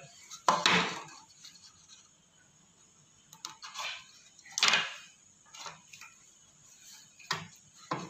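Hard plastic parts clattering and knocking as a front-load washing machine's bottom access panel and its small drain pipe are handled: a handful of separate knocks, the loudest about half a second in and again nearly five seconds in.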